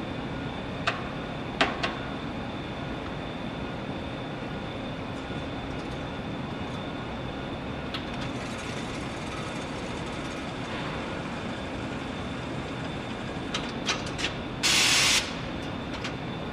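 JBI CB30QS coil inserter running as it spins a plastic binding coil into a book and crimps the ends, a steady mechanical hum with a faint high whine. Sharp clicks come about a second in and again near the end, followed by a loud half-second burst of hiss.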